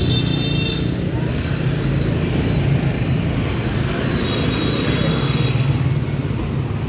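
Dense city street traffic: many motor scooters and cars passing close by, a steady, continuous engine hum. A faint high tone sounds briefly at the start and again from about four seconds in.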